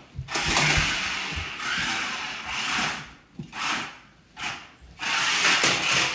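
Toy RC stunt car's small electric motors whirring as it is driven, in spurts that drop out briefly about three and four seconds in.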